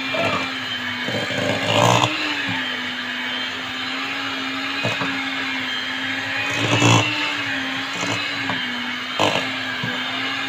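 Electric hand mixer running steadily, its beaters whirring through thick cake batter in a stainless steel bowl. The beaters knock sharply against the side of the bowl several times, every second or two.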